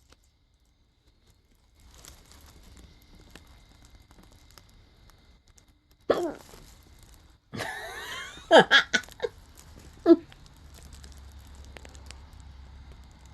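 Hiccups: short, sharp gulping sounds, one about six seconds in and then several in quick succession between about eight and a half and ten seconds.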